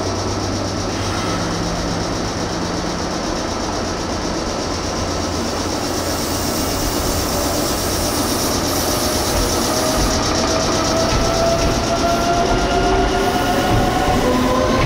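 Electric commuter train pulling out of a station, its motors whining in several tones that rise in pitch together as it picks up speed, starting about six seconds in.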